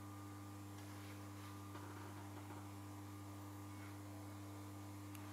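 Steady electrical hum inside the saloon of a standing Class 321 electric multiple unit, its onboard equipment running while the traction motors are idle, with a couple of faint ticks.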